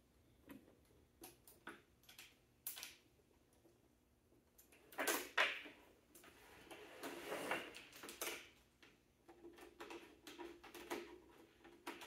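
Scattered light clicks, taps and short rustles of hands handling a screwdriver and small metal and plastic parts while fitting pieces to an upright vacuum's chrome handle, with a few louder rustles about five seconds in and again around seven to eight seconds.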